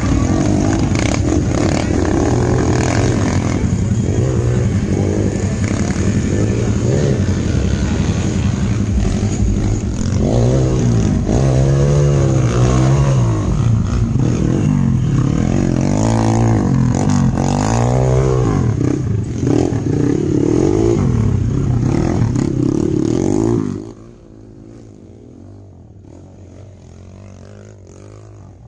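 Off-road motorcycle engine running under heavy throttle, its pitch rising and falling again and again as it revs. The engine sound cuts off abruptly near the end, leaving a much quieter background.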